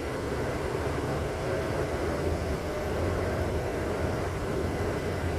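Steady low rumble of a vehicle in motion, with no sudden events.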